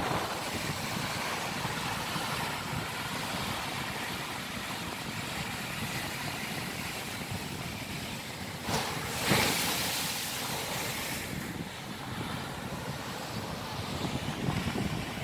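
Rough sea surf at high tide, waves breaking and washing in against concrete sea-wall blocks, with wind buffeting the microphone. The noise swells louder for a couple of seconds about nine seconds in.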